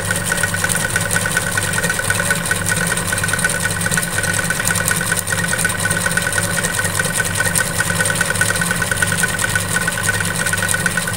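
Electric sewing machine running steadily at speed for free-motion embroidery, its needle stitching in a fast, even rhythm while the hoop is moved by hand to lay granite stitch (small overlapping circles).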